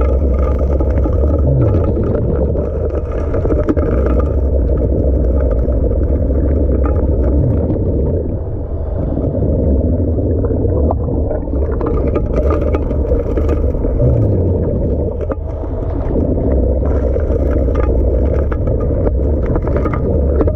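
Proline 6-inch gold dredge's engines running steadily with a loud, low drone, with a couple of brief downward slides in pitch.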